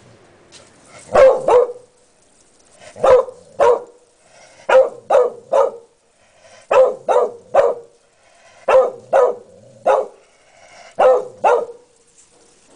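Beagle barking in groups of two or three sharp barks, a group about every two seconds.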